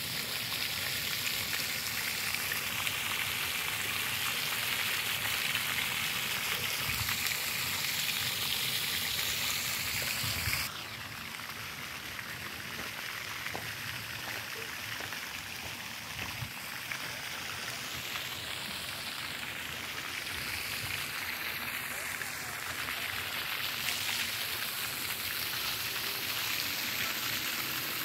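Steady hiss of a pond fountain's spray falling back onto the water, which cuts off abruptly about ten seconds in, leaving a quieter outdoor background.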